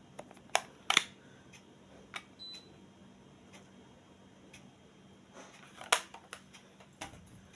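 A handful of sharp clicks, the loudest about half a second, a second and six seconds in, with one short high beep about two and a half seconds in, over a faint low steady hum.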